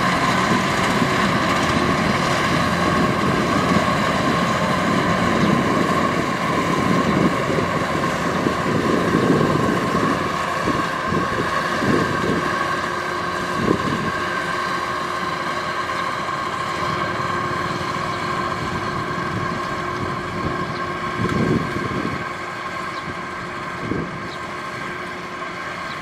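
Kubota DC-93 rice combine harvester running while cutting, a steady diesel drone with a high whine over it, growing gradually fainter as the machine moves away. A few short knocks come through about halfway in.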